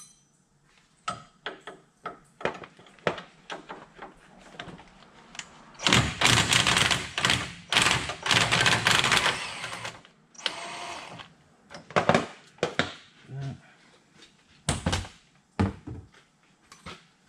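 Hand ratchet loosening bolts on a truck's radiator mounting: scattered metal clicks and knocks, then about four seconds of dense, rapid ratcheting from about six seconds in, followed by a few more clicks.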